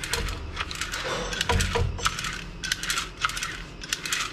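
Irregular light clicks and clinks as a snowblower's plastic recoil starter housing is handled and worked with a slender tool while the new starter rope is threaded through it.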